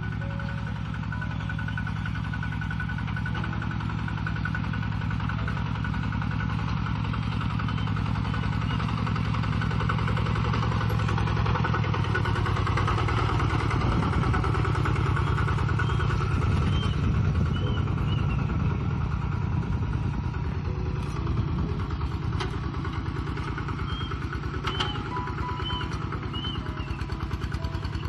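Single-cylinder diesel engine of a Kubota RT-120 Plus walking tractor running steadily under load while it pulls a plough through dry soil. It grows louder as the tractor passes close, about halfway through, then eases off as it moves away.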